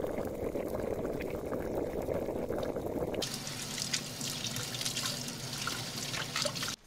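Water boiling in a saucepan on a gas stove, a dense low bubbling. About three seconds in it changes abruptly to a kitchen tap running onto bok choy rinsed by hand in the sink, a splashing hiss with small drips.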